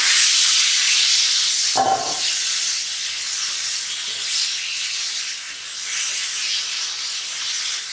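Raw chicken chunks frying in hot oil and spices in a pan: a loud, steady sizzle that eases a little as it goes, with a brief knock about two seconds in.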